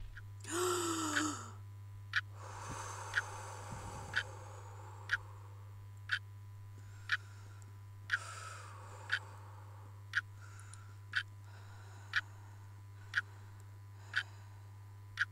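A clock ticking about once a second over a low steady hum. A short, louder sound with a falling pitch comes just before the ticking starts.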